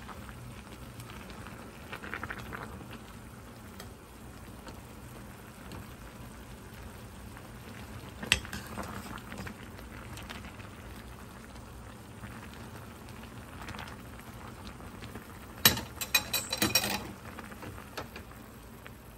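Fish cake soup simmering in a stainless steel pot while a metal ladle stirs it. The ladle knocks sharply against the pot about eight seconds in, then clinks several times in quick succession near the end.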